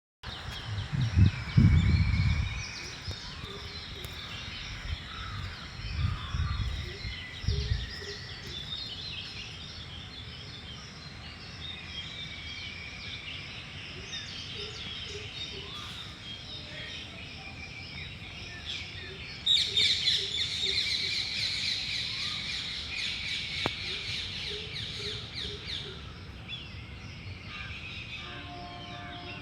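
Many small birds chirping and trilling together, with the chorus growing denser and louder about two-thirds of the way through. A few low rumbles sound in the first several seconds, the loudest near the start.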